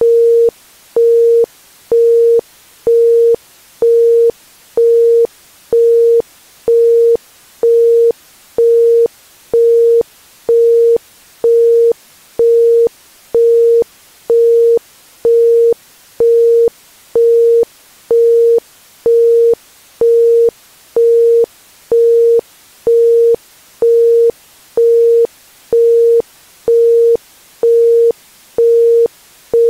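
Isochronic brainwave-entrainment tone: a pure 465 Hz tone switched fully on and off about once a second (1.05 Hz), in even pulses, over a faint hiss.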